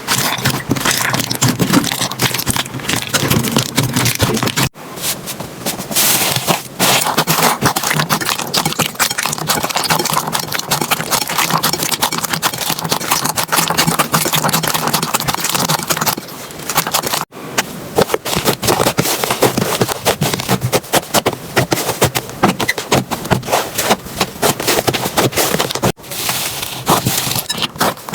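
Slime being squeezed and poked by hand: a dense, irregular run of sticky clicks and crackles. Three abrupt breaks fall where one clip gives way to the next.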